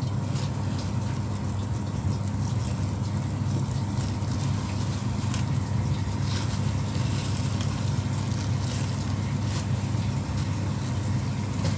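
Steady low hum of commercial kitchen machinery with a faint steady whine above it, and light rustling clicks here and there as a plastic bread bag is handled and slices are laid down.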